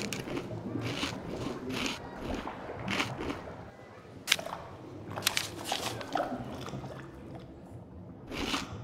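Chewing sound effect for the cartoon manatees eating seaweed: irregular crunching, munching bites, a few seconds apart.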